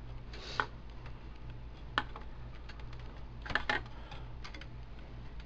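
A few sharp clicks and knocks from parts inside a desktop computer case being handled and pushed: one at about two seconds and a quick cluster a little past the middle, over a steady low hum.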